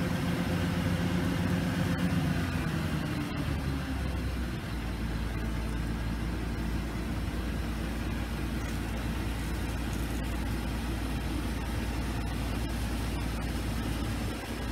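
New Holland TC5070 combine harvester running steadily while its unloading auger empties sunflower seed into a trailer. About four seconds in, the engine note changes and settles into a deeper, steady hum.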